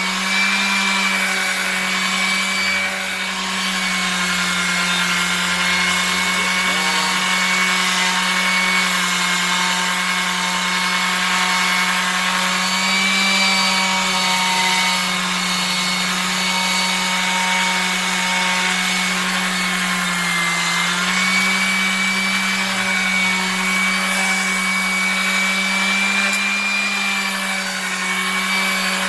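A Drillmaster electric palm sander running steadily, its sandpaper pad scuffing the surface of a stainless steel tumbler: a constant motor hum under a gritty rubbing hiss. The motor's pitch dips briefly about two-thirds of the way through.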